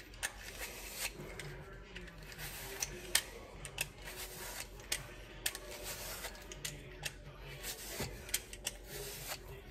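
Vegetable peeler scraping the skin off a McIntosh apple in short strokes, a quiet run of irregular small clicks and rasps.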